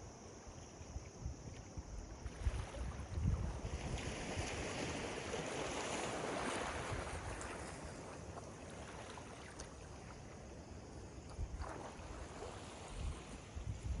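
Ocean surf washing onto a beach: a wave swells and breaks near the middle, then the wash eases. Wind buffets the microphone in low gusts.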